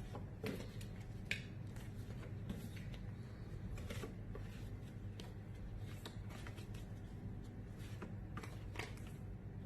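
Phonics flashcards being flipped and handled: soft card clicks and rustles every second or two, a few sharper ones near the start and middle, over a low steady hum.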